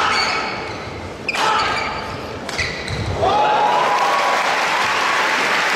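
Badminton rackets striking a shuttlecock, three sharp ringing hits about a second and a half apart, then an arena crowd cheering and applauding from about three seconds in, with one long rising call above it. The cheering cuts off suddenly at the end.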